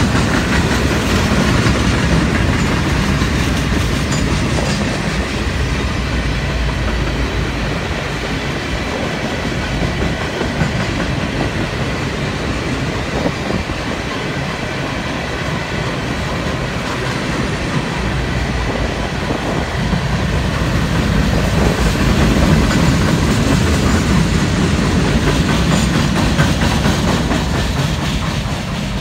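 A freight train's cars rolling past at close range: a steady rumble of steel wheels on the rails with clickety-clack over the rail joints. It dips in the middle, rises again, then starts to fall away near the end as the last cars go by.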